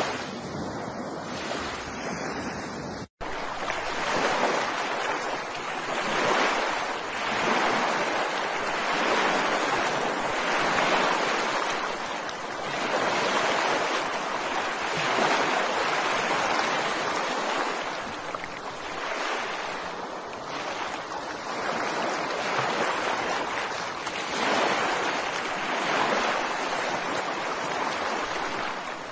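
Ocean surf breaking and washing onto a beach, the noise swelling and easing every few seconds. There is a momentary dropout to silence about three seconds in.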